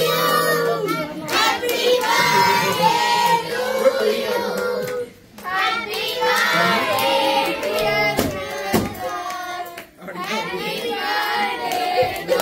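A group of children singing together to scattered hand claps, with two brief breaks about five and ten seconds in.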